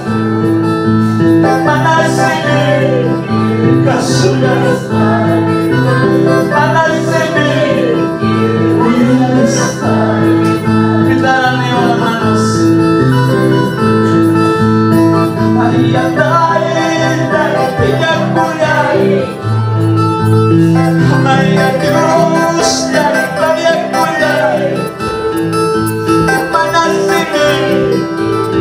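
Live worship music on an electronic keyboard: a bending melody over a steady bass line and beat.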